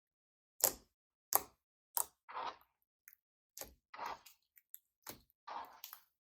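Slime being kneaded and pressed by hand: irregular sharp, sticky pops and clicks, loudest in the first two seconds, between softer squelches.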